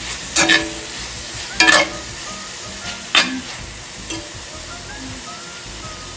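Silkworms stir-frying with chillies and tomato in a pan, sizzling steadily, while a metal spoon scrapes and knocks through them, with three louder strokes in the first half and softer ones after.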